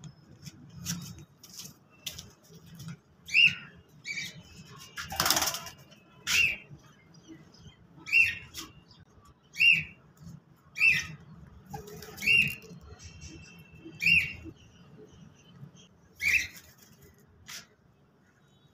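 Male cockatiel calling over and over, a short high whistled call about eight times, one every second and a half or so, calling for its dead mate. A brief rustling burst about five seconds in.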